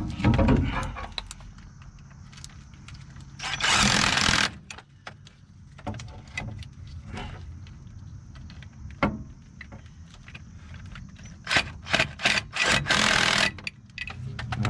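Metal clicks and scrapes of bolts and a socket being worked into the rear U-joint flange of a Ford F250 driveshaft, with two loud bursts of noise about a second long, one a few seconds in and one near the end.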